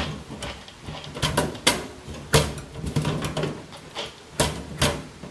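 Metal computer-case hardware being handled: a series of sharp clicks and knocks, a second or so apart, over a steady low hum.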